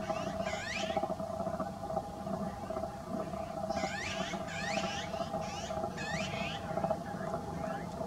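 Azure-winged magpies calling: a single harsh call about half a second in, then a quick run of about five more between four and six and a half seconds in, over a steady background hum.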